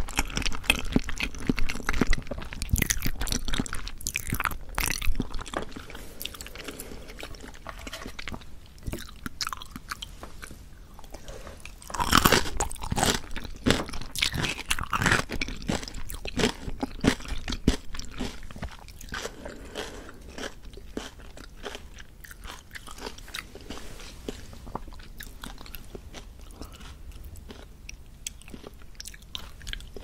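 Close-miked chewing of olbanggae-muk, a chewy, springy Korean water chestnut starch jelly: a dense run of wet, sticky mouth clicks and squelches. The chewing is loudest about twelve seconds in and softens toward the end.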